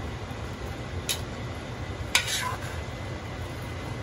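Metal ladle clinking against the side of a stainless steel stockpot while stirring vegetables, two sharp clinks about a second apart.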